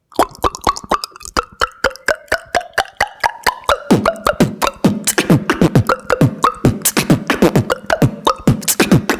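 Beatboxer's mouth-made water-drop sound: rapid clicks and pops in a fast rhythm. From about four seconds in, many pops have a quick falling pitch, like drops plinking into water.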